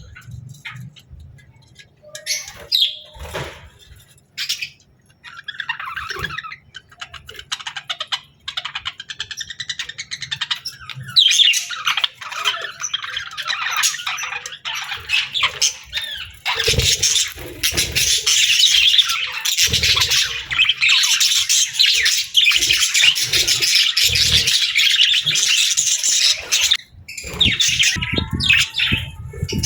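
A budgerigar calling: scattered short chirps at first, then a fast, continuous warbling chatter for most of the rest, thinning out again near the end.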